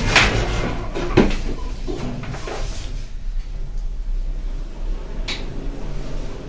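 Schindler passenger lift's sliding doors swishing shut and meeting with a knock about a second in, then the car travelling upward with a steady low hum; a short click near the end.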